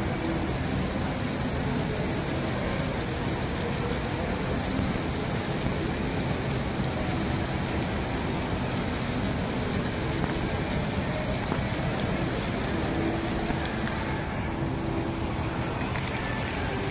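Indoor decorative fountain: water jets splashing down into the basin, a steady rush of falling water.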